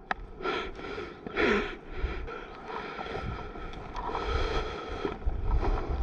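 Wind buffeting a head-mounted action-camera microphone, with a sharp click just after the start and a few short rushes of noise in the first two seconds.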